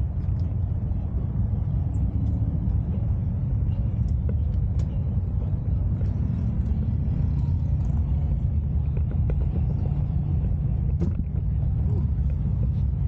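Honda GoldWing F6B's flat-six engine running at low speed, a steady low rumble as the motorcycle rolls slowly along.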